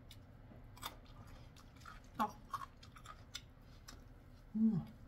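A person chewing crispy fried chicken bites (dakgangjeong), with a few sharp crunches scattered through quieter chewing. A short hummed vocal sound comes near the end.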